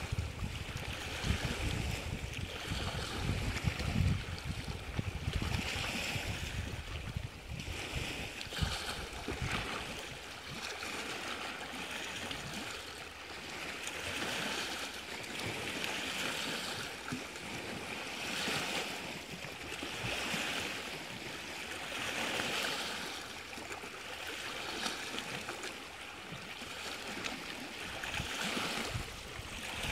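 Small Lake Superior waves washing against the rock shoreline, a hiss of water that swells and falls about every two seconds. Wind rumbles on the microphone for the first several seconds, then drops away.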